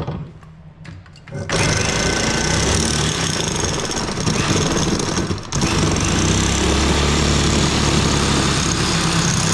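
Cordless reciprocating saw cutting through a car's finned heater core clamped in a vise. The cut starts about a second and a half in and runs steadily, with a brief pause about halfway.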